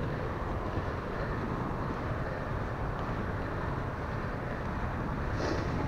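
Mountain bike riding over a grassy single-track trail: a steady, low rumble of the tyres and bike, with wind on the camera microphone.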